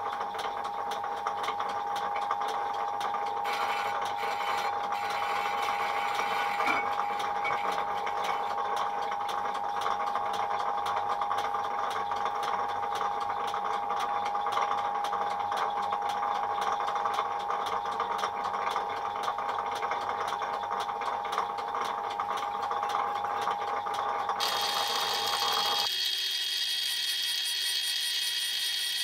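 Old South Bend lathe running, its carbide tool facing a cast-iron brake disc, with a steady ringing tone and fast, fine ticking. Near the end the sound changes abruptly to a higher, hissing whine.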